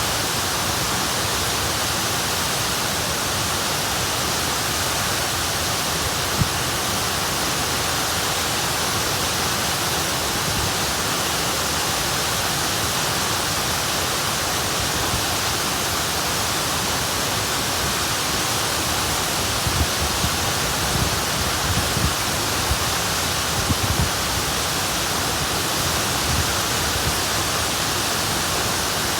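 Waterfall pouring steadily, a dense, even rush of falling water with no let-up. A few brief low bumps sit under it about six seconds in and again around twenty to twenty-four seconds in.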